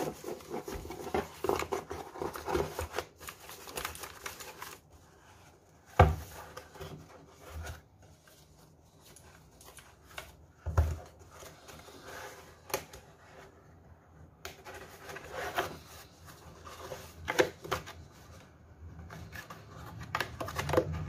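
Packing sounds: a plastic foam wrap rustling as it is handled, and a cardboard box being slid and folded shut. A couple of sharp knocks in the middle.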